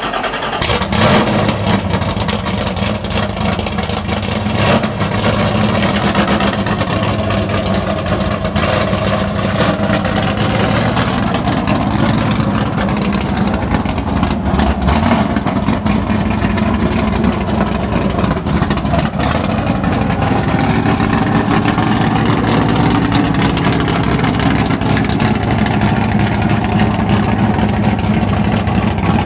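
Small-block Chevrolet V8 with a radical cam idling with a rough, lumpy lope.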